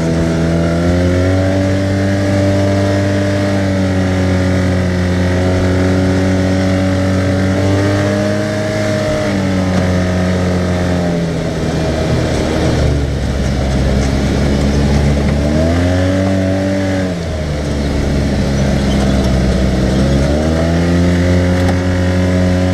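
A 2014 Arctic Cat side-by-side's engine running under way, its pitch rising and falling with the throttle: it eases off and drops about halfway through, climbs sharply and falls back a few seconds later, then climbs again near the end.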